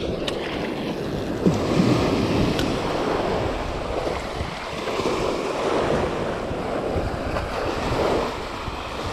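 Small surf waves breaking and washing up the sand at the water's edge, swelling and easing, with wind buffeting the microphone.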